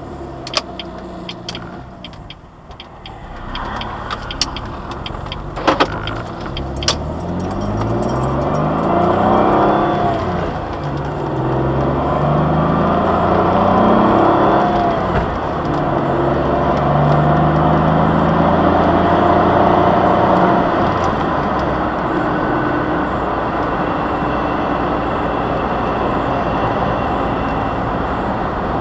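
2003 Jaguar X-Type's 2.5-litre V6 heard from inside the cabin, pulling away and accelerating through the gears of its five-speed manual. The engine note rises, drops at each gear change, then settles into a steady cruise with road noise. A few sharp clicks sound in the first several seconds.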